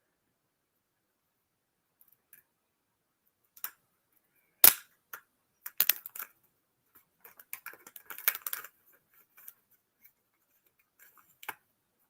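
Hands unboxing a gadget: scattered clicks, taps and short rustles of cardboard and plastic packaging, with one sharp click about four and a half seconds in and bursts of rustling around six and eight seconds in.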